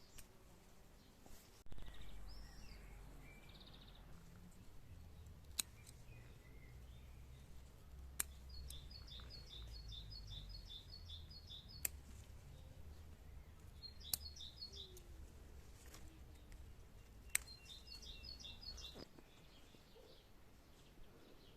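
Faint bird calls: three runs of quick, evenly repeated chirps, about four a second, over a low rumble, with a few sharp clicks in between.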